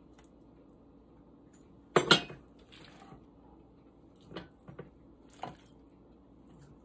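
Stainless steel canning funnel set down onto the rim of a glass canning jar: two sharp metal-on-glass clinks close together about two seconds in, followed by a few lighter clicks and taps.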